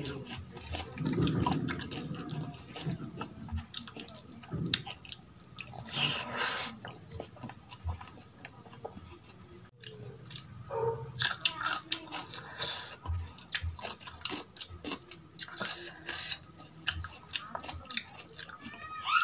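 Wet eating sounds: fingers mixing and squeezing dal and rice on a steel plate, with chewing and lip smacks. Short sticky clicks run throughout, with a few louder wet smacks.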